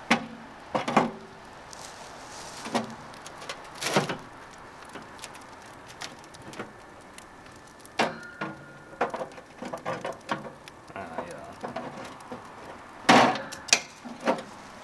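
Metal cooking grates of a Char-Griller Gambler portable charcoal grill being set in place by gloved hands: a series of irregular clanks and knocks, one ringing briefly about eight seconds in, with the loudest pair near the end.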